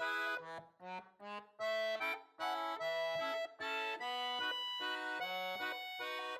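Instrumental background music: a lively tune of short and held chords with brief gaps between phrases.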